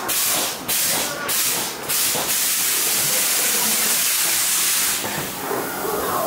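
Hissing special effects on an earthquake-themed subway dark ride: a few short hiss blasts about half a second apart, then a steady hiss for a few seconds that turns duller about a second before the end.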